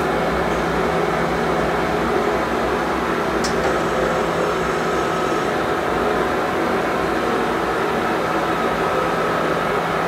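Steady mechanical hum of a powered-up SMTCL STC-34300 CNC hollow spindle lathe, with a few faint steady tones in it. A faint click comes about three and a half seconds in.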